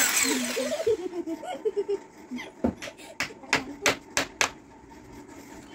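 A hammer knocking at a ceramic-tiled wall at a freshly drilled hole, about seven blows in quick succession, roughly three a second, over about two seconds.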